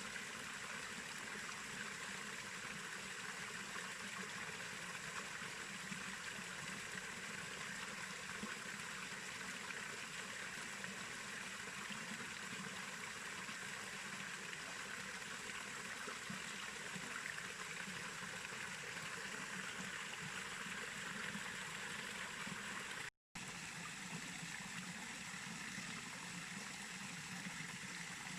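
Steady rushing of a small waterfall pouring into a clear pool, an even water noise that briefly drops out once near the end.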